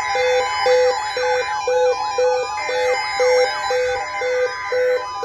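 Several sirens sweeping rapidly up and down at once, layered with a short beep that repeats about twice a second.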